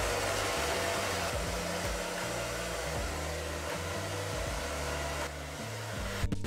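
Handheld hair dryer blowing steadily while drying long wet hair. The sound drops out for a split second near the end.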